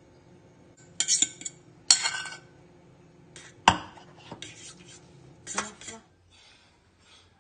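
A metal spoon scraping and clinking against a ceramic bowl and a stainless steel tray as batter is scraped out onto squid. There are clattering scrapes about one and two seconds in, one sharp clink just before the middle that is the loudest, and a last clatter near the end.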